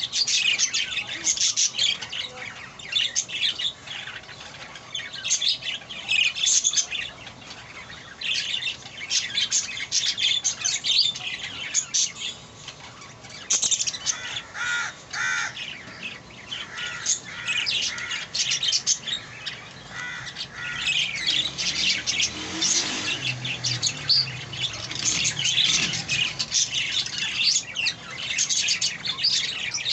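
Budgerigar chicks giving a dense stream of rapid, high, scratchy chirps and squawks.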